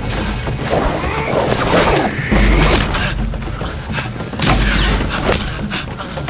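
Dramatic film-score music with deep drum booms about every two seconds, under men's shouts and the crackle of bodies running through foliage.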